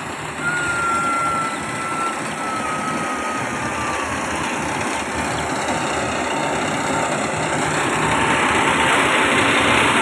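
Yanmar AG600 combine harvester running steadily while cutting rice: an even mechanical noise with a thin whine that slowly drops in pitch over the first few seconds. The noise grows louder toward the end.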